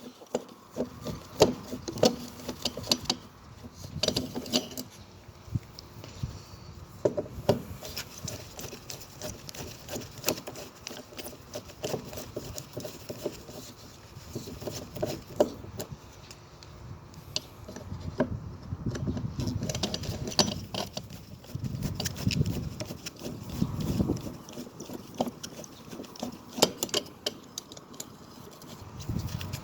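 Scattered clicks, taps and light rattles of hand work on a fire alarm pull station as it is opened and taken off the wall. A low rumble swells and fades from about 18 to 24 seconds in.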